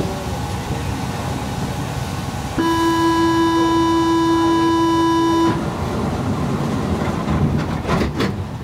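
Door-closing warning tone at a Paris Metro Line 1 station with an MP05 train standing: one steady buzzer-like tone lasting about three seconds over the hum of the stationary train, then a few clunks near the end as the doors shut.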